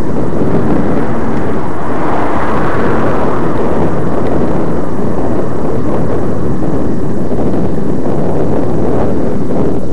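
Loud, steady rumble of wind and road vibration on the microphone of a camera moving up a road, swelling a little about two seconds in.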